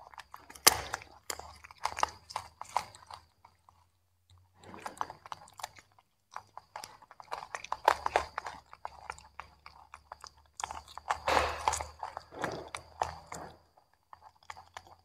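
Baby macaques chewing and crunching pieces of broccoli and carrot, close up: rapid wet crunches in bursts, with short pauses between mouthfuls.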